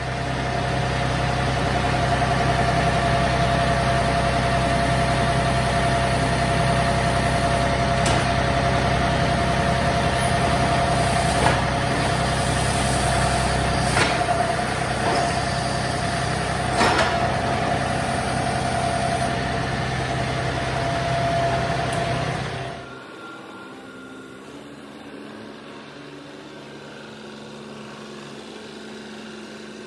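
John Deere 3038E compact tractor's three-cylinder diesel engine running steadily at idle, with a few sharp metal clanks as the loader works the plow blade's mount. About three-quarters of the way through, the engine sound cuts off abruptly, giving way to a much quieter steady background.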